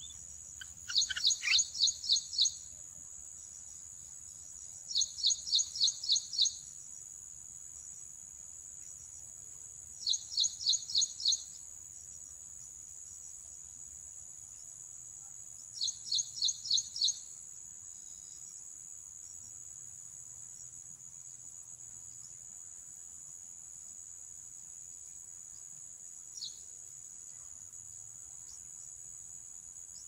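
A steady high-pitched insect trill, broken four times by short bursts of rapid, loud high chirps, each lasting about a second and a half. A single short chirp comes near the end.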